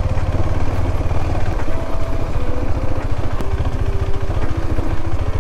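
KTM 390 Adventure's single-cylinder engine running, a steady rapid beat of firing pulses.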